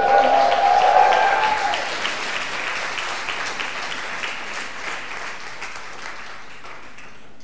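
Congregation applauding in a large hall, loudest in the first couple of seconds with a few voices calling out over it, then slowly dying away.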